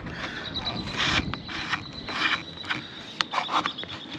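Hand scraper scraping half-rubbery old waterproof paint off a fibreglass camper roof, in several short rasping strokes about a second apart, with a few sharp clicks near the end.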